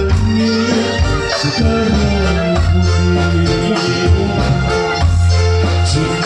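Loud live music from a sandiwara accompaniment band, led by an electronic keyboard playing held, organ-like notes over a steady bass line.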